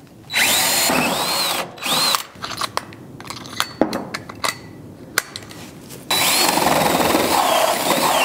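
Cordless drill driving a hole saw through a wooden bottom plate in two short bursts, its motor pitch rising and falling with the trigger. Then comes a few seconds of scattered clicks and knocks while the cut wood plug is cleared from the saw. About six seconds in the drill starts again and runs steadily.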